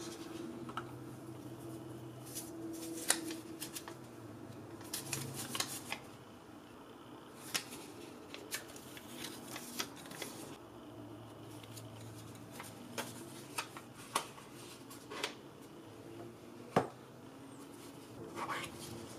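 Small cardboard boxes and a paper leaflet handled by hand: crinkling paper and card rustles, with scattered light taps and clicks of the boxes, over a faint steady hum.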